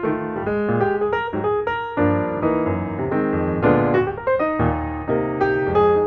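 Background piano music: a steady flow of single notes over fuller chords.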